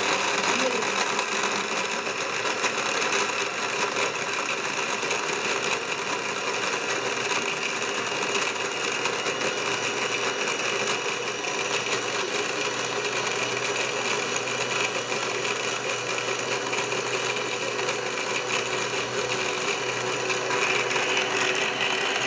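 Electric blender motor running steadily at full speed, churning pomegranate seeds with a little water into juice. It grows slightly louder and brighter near the end.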